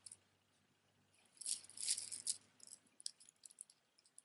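Strands of a multi-layer plastic bead necklace clicking and rattling against each other as they are handled, with a short burst of rattling around the middle and then a few light scattered clicks.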